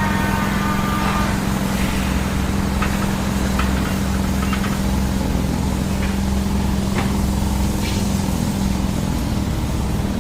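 A large engine running at a steady idle, with a constant low hum. A high whine cuts off about a second in, and a few short metallic clicks follow.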